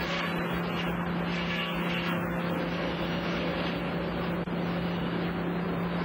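Sawmill machinery and conveyors running: a steady low motor hum under a constant noisy mechanical rush.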